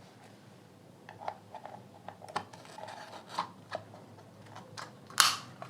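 Plastic casing of a JBL Tune Bluetooth speaker being pried apart: scattered clicks, taps and scraping, with one louder sharp snap about five seconds in.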